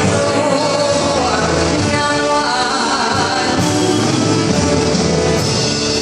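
Thai luk thung music played live by a band with brass, with a singer's voice over the band.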